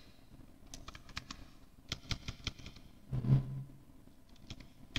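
Computer keyboard keys clicking faintly in short scattered runs as a few words are typed and corrected. A brief low hum comes about three seconds in and is the loudest sound.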